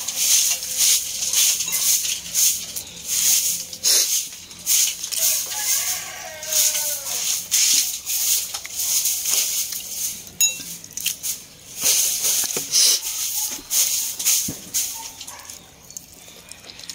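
Close-up chewing of crunchy dried fish (bulad) with rice: crisp crunching hisses coming two or three times a second, easing off near the end.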